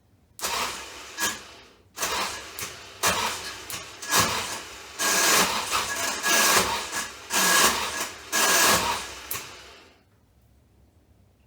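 Ford Focus starter motor cranking in a series of uneven bursts for about ten seconds without the engine catching; the starter is faulty.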